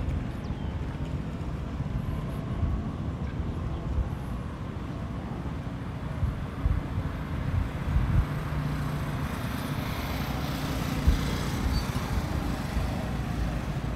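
Low rumble of road traffic, with wind buffeting the microphone.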